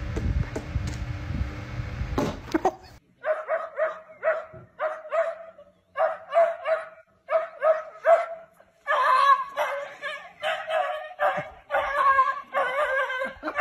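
Small black dog barking in a run of short yapping barks, about two a second, which become longer and louder from about nine seconds in.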